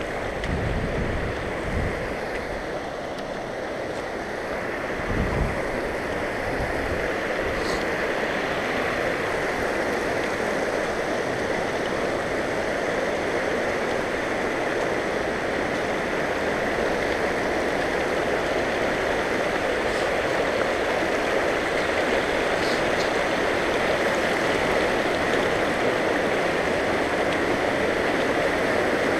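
Mountain creek rushing over rocks in a steady wash of water that grows slowly louder toward the end as a small cascade draws near. A few low thumps in the first seconds.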